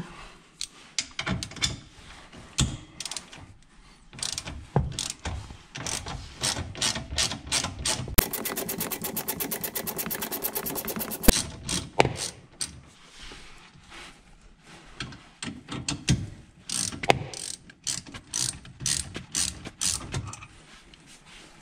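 Hand ratchet with a 10 mm socket clicking as a bolt is loosened: scattered clicks from short back-and-forth swings, then a fast, even run of clicks lasting about three seconds from about eight seconds in.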